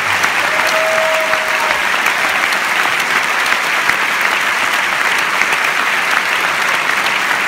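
Large theatre audience applauding steadily: a dense, even wash of clapping.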